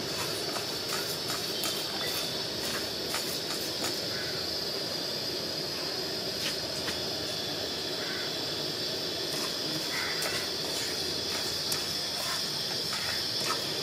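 Steady hiss of a small portable gas burner under a pan, with light scraping and scattered small clicks of a wooden spatula stirring coriander seeds dry-roasting in a nonstick pan.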